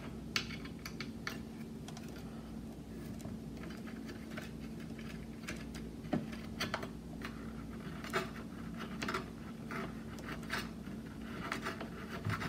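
Scattered light clicks and scratches of small metal light-fixture parts, the mounting plate and its screws, being handled, over a faint steady hum.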